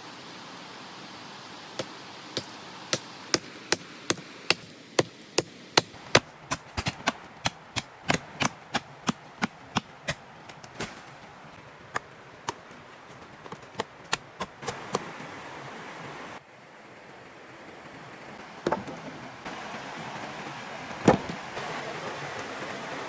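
Repeated sharp chopping strikes, about two a second, stopping about 15 seconds in, with two more single strikes later, over a steady rush of running water.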